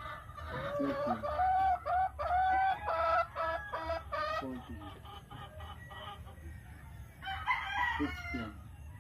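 Rooster crowing with chickens clucking: a long run of calls through the first half, then another call near the end.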